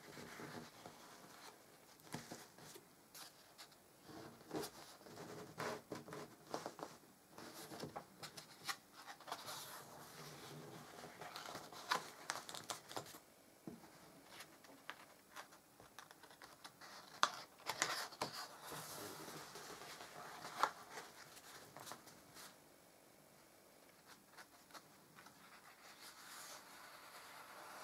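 Stiff pages of a photo album being turned and handled: faint paper rustling and scraping with scattered soft taps and clicks, quieter for a few seconds near the end.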